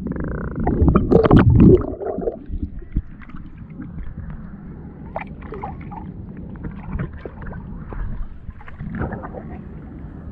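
Shallow sea water stirred by a wading hand and a submerged microphone: muffled underwater rumbling and sloshing for about the first two seconds. Then, with the microphone above the surface, quieter water lapping with small splashes and drips.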